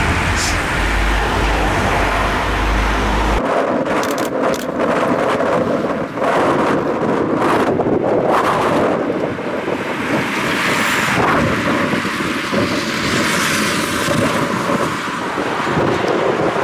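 Wind noise on the microphone over passing vehicles, with a heavy low rumble that cuts off abruptly about three seconds in; after that, gusty rushing noise.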